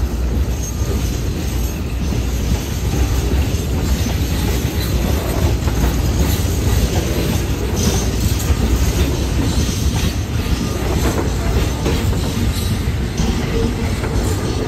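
Freight train wagons rolling steadily past at close range, their wheels clattering over the rail joints.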